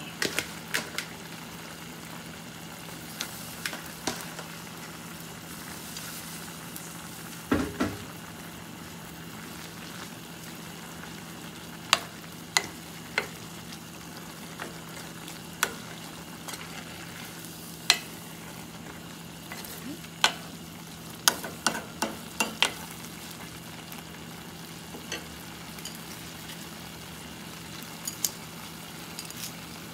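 Chicken curry with glass noodles simmering in a stainless steel pot with a steady sizzle. A wooden spoon stirs it, with sharp knocks against the pot now and then, most in a cluster past the middle.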